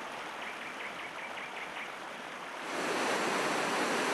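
Rushing mountain river: a steady wash of water that grows louder and brighter about two-thirds of the way in, as churning white water. About half a second in, a quick run of about seven high chirps lasts for a second and a half.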